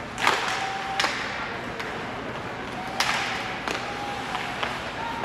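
Ice hockey play: a few sharp knocks and clacks of sticks and puck, the loudest just after the start and about three seconds in, over the steady background of the rink.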